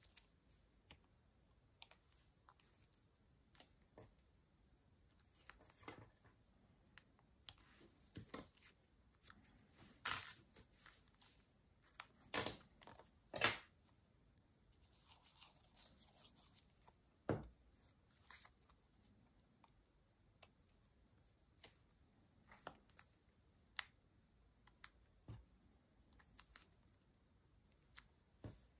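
Faint handling of paper pieces: scattered soft rustles, taps and clicks as folded paper segments are glued and pressed together, with a few louder clicks a little before the middle.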